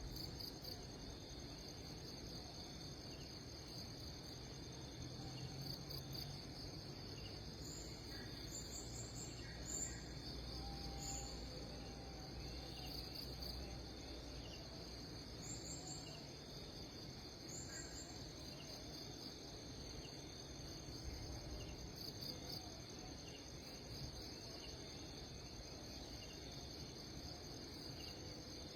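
Insects trilling steadily and high. A few short, very high chirps come about eight to ten seconds in and again around sixteen to eighteen seconds.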